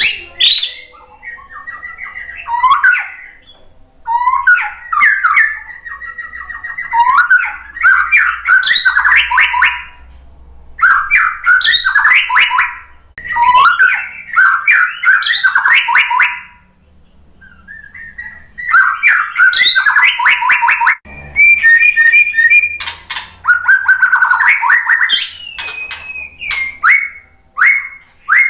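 Male white-rumped shama singing: bursts of rapid, varied whistled notes and chattering trills lasting a second or two each, with short pauses between phrases.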